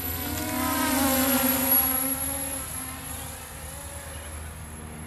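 Radio-controlled model aircraft flying past overhead: its motor and propeller whine grows louder, peaks about a second and a half in, then falls in pitch as it goes by and fades away.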